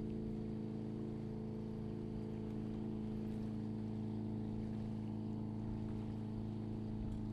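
A boat motor running steadily at an even speed, giving a constant low hum with no revving.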